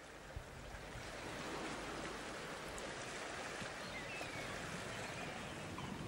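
A steady rushing noise that swells in over the first second or so, then holds even, with a few faint short chirps in the middle.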